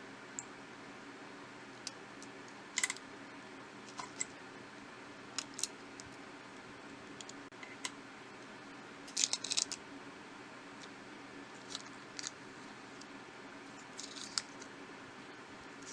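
Scattered small clicks and short scrapes of hand tools against smartphone parts during disassembly, with a busier cluster of clicks about nine seconds in, over a steady low hum.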